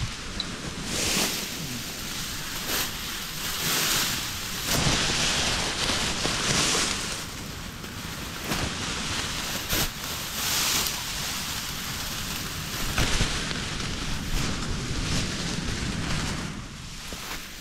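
Dry grass rustling in the wind right around a trail camera, a steady hiss that swells and fades in gusts every second or two, with a few light ticks of stems brushing the camera.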